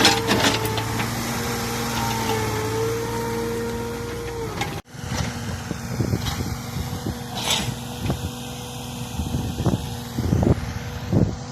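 Komatsu excavator running, with a steady engine drone and a whine. About five seconds in, the sound cuts abruptly, and the machine then runs on with a series of short knocks and clanks.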